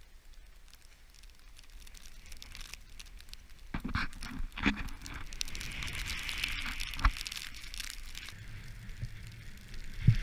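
Snowboard sliding and carving over snow: a scraping hiss that builds up after a quiet start, broken by a few sharp knocks, the clearest about seven seconds in.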